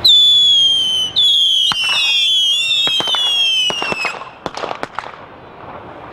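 Several whistling fireworks going off together, each a high whistle that falls slowly in pitch, overlapping for about four seconds. Sharp cracks come among them and in a quick string just after the whistles stop.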